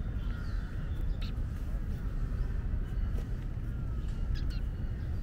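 Birds chirping and calling, with short, scattered calls over a steady low rumble.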